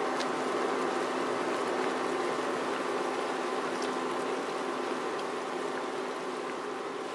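Pork chops simmering in sauce in a wok: a steady bubbling and light sizzle of the cooking liquid, with a faint steady hum underneath.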